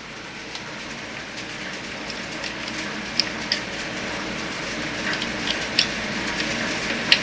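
A steady hiss that slowly grows louder, with a few light clicks and taps as hand tools and parts are handled around a UTV's shock mount and frame.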